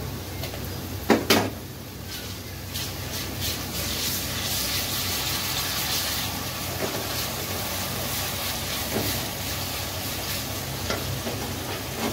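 Chopped onions frying in oil in a metal karahi, stirred with a wooden spatula: a steady sizzle. Two sharp knocks come about a second in.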